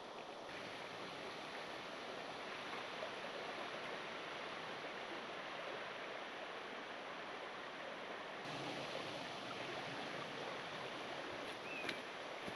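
Steady outdoor rushing ambience, an even noise with no clear events, its level shifting abruptly twice. A brief high chirp comes near the end.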